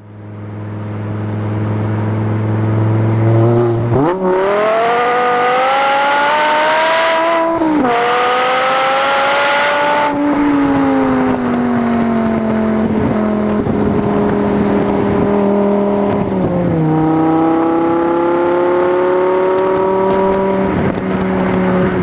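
RD Sport V10 engine and exhaust of a Fisker Latigo CS, heard from inside the cabin. It runs steadily at first; about four seconds in it accelerates hard with a rising pitch, broken by two upshifts about two and a half seconds apart. Then the revs fall slowly off the throttle, and after a shift near the end they climb gently again.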